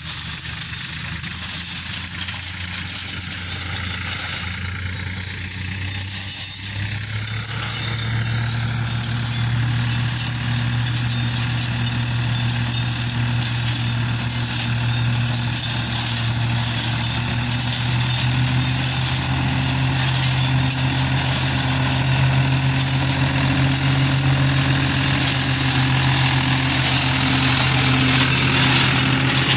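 New Holland TT50B tractor's diesel engine running steadily while driving a flail mulcher that shreds vine prunings, growing gradually louder as the tractor comes closer. The engine note rises slightly about seven seconds in.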